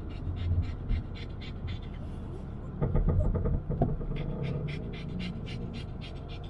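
Dog panting rapidly, about four breaths a second with a brief pause partway through, over the low rumble of the car driving.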